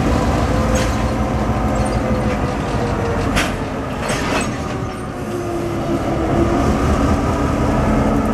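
EMD GP38-2 diesel locomotive's non-turbocharged 16-cylinder 645 engine running steadily as the locomotive rolls slowly past, with a few sharp clicks from the moving train.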